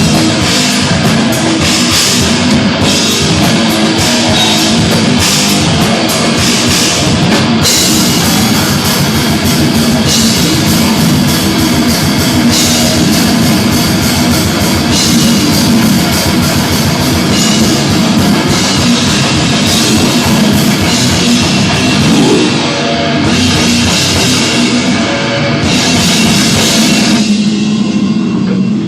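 Death metal band playing live: heavily distorted low guitar and bass over fast, dense drumming, loud throughout. The music thins out shortly before the end, then stops.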